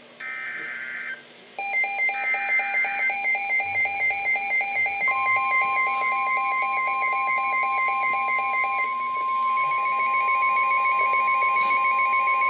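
Midland WR-120 weather radio sounding a Special Marine Warning alert. First come the short warbling data bursts of the SAME header, then the radio's own pulsing alarm beep, joined about five seconds in by the steady 1050 Hz NOAA Weather Radio warning tone. The beeping changes its pattern about nine seconds in.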